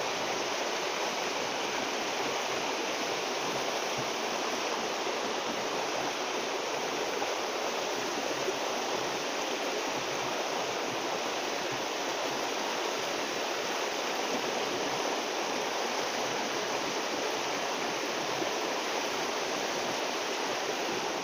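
Water of a small river running steadily, an even, unbroken rush with no breaks.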